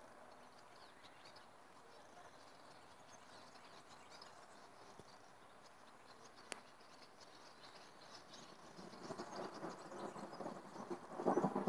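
Faint outdoor ambience with insects chirping softly, and a single sharp click about six and a half seconds in. From about nine seconds a louder, irregular rumbling noise builds up and is loudest near the end.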